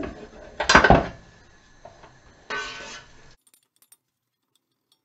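Wooden spatula stirring and scraping onions frying in oil in a stainless steel pot, with pan clatter and sizzle: a loud burst about a second in and a shorter one at about two and a half seconds. Then the sound cuts off.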